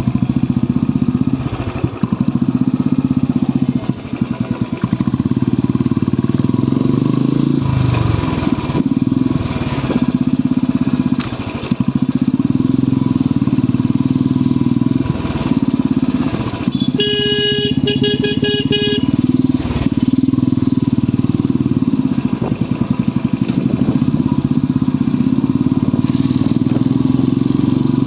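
Royal Enfield motorcycle's single-cylinder engine running under way, its thump rising and falling with throttle and gear changes. About 17 seconds in, a horn gives a quick string of short beeps.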